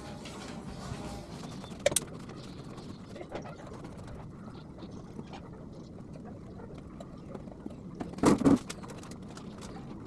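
Hand-washing of a motorcycle wheel: wet cloth and water sounds over a steady low background, with a brief knock about two seconds in and a louder clatter about eight seconds in.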